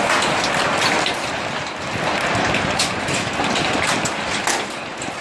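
Heavy hail of large stones falling: a dense steady roar with many sharp, irregular clacks of single hailstones striking.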